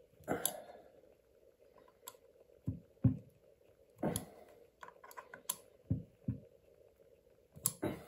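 Small screws, a tool and the parts of an ESC fan being handled and set down on a work surface: scattered sharp clicks and dull knocks, about ten of them, over a faint steady hum.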